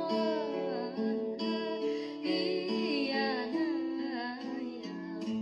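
Background music with a plucked guitar accompaniment and a gliding melody line.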